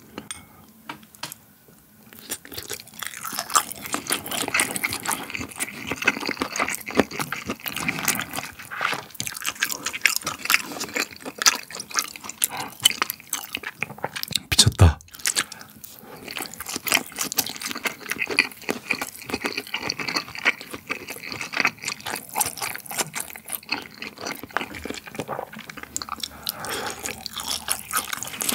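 Close-miked chewing of raw beef sushi (mungtigi: fresh-sliced raw beef on rice), thick with small mouth clicks, starting about two seconds in. There is one low thump about halfway through.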